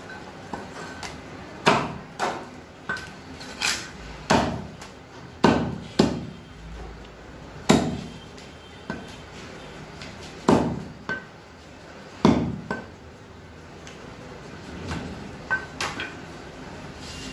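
Heavy butcher's cleaver chopping raw chicken on a round wooden chopping block: sharp, loud thuds at an irregular pace, often in quick pairs, with short pauses between pieces.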